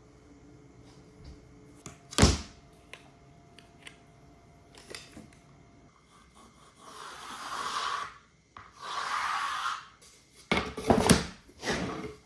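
Floor planks being handled and fitted: a sharp wooden knock, two scraping or rubbing passes, then a quick run of knocks near the end.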